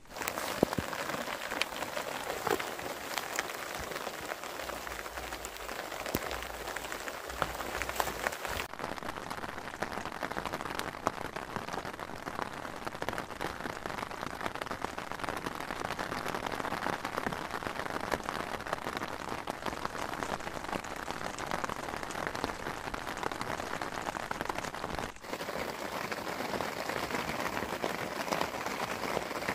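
Steady rain falling on a nylon tent's fabric, a dense patter of many small drop ticks, with two abrupt shifts in tone, about a third of the way in and near the end.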